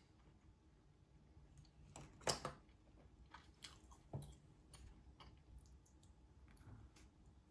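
Close, quiet chewing of a mouthful of raw beef yukhoe with julienned pear, with soft wet clicks. A sharp knock about two seconds in, as wooden chopsticks are set down on the table, and a duller thump a couple of seconds later.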